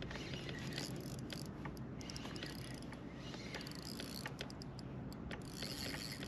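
Spinning fishing reel being cranked against a hooked fish, giving irregular runs of light mechanical clicks over a steady low hum.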